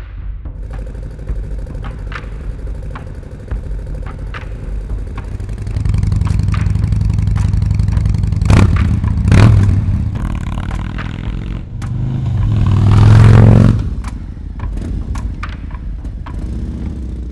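Motorcycle engine running through an electronically adjustable aftermarket exhaust. It idles steadily, then steps up in loudness about six seconds in. There is a quick throttle blip around nine seconds and a longer rev that rises and falls around thirteen seconds before it settles back to idle.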